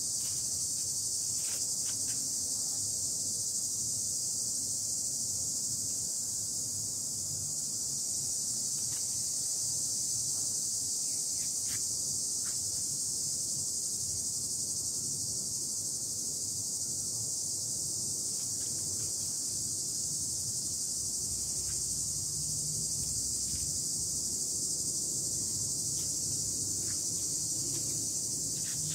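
Insect chorus droning high-pitched and steady without a break, with a few faint short ticks scattered through it.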